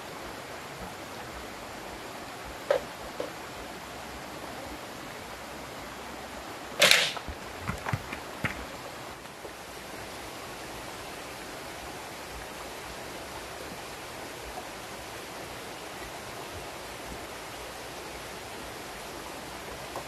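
Green bamboo poles clattering: one sharp, ringing clatter about seven seconds in, followed by a few lighter knocks, over a steady background hiss.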